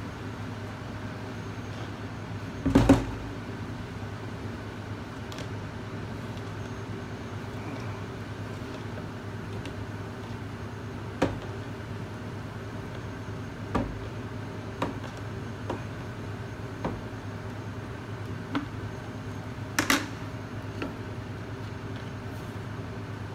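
Steady hum of commercial kitchen exhaust hood fans, with scattered knocks and clatters as containers are handled. The loudest clatter comes about three seconds in, another about twenty seconds in, and smaller knocks fall between.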